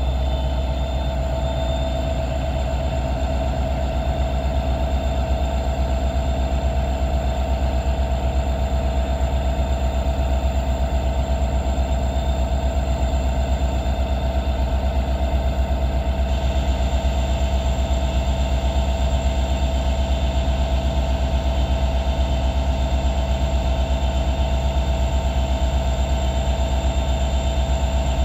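EMD 710 diesel engine of a BNSF SD70ACe locomotive idling steadily shortly after a cold start: an even low drone with a constant higher hum, no change in speed.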